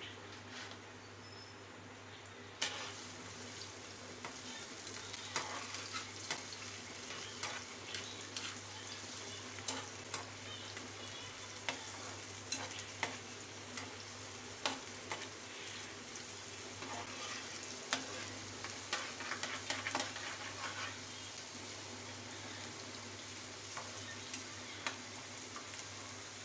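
Chopped onions sizzling as they fry in ghee in a nonstick pan, with a metal spoon clicking and scraping against the pan as they are stirred, from about three seconds in.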